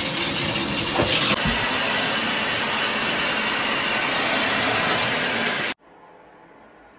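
Shower running: water spraying from a shower head into a bathtub, a steady hiss that cuts off suddenly about six seconds in.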